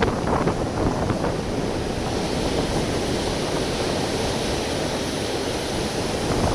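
Wind buffeting a small camera microphone over ocean surf washing against the rocks. The hiss of the surf grows about two seconds in.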